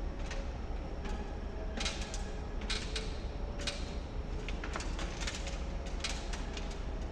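Irregular clicks and light knocks, a few to the second, over a steady low rumble.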